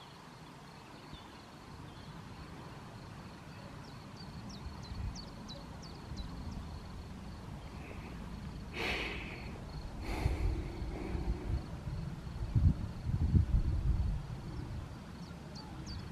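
Gusty wind buffeting the microphone, getting stronger in the second half. Faint high chirps come and go, and two short sharp sounds come close together around the middle.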